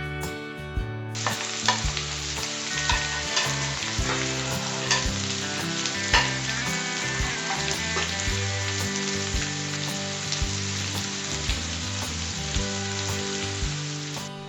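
Sliced onions sizzling in hot coconut oil in a kadai with curry leaves, starting abruptly about a second in, with scattered clicks from stirring in the pan.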